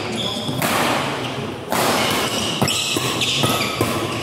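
Badminton rally: rackets strike the shuttlecock with sharp cracks, two clearest past the middle, and players' shoes squeak briefly on the court floor.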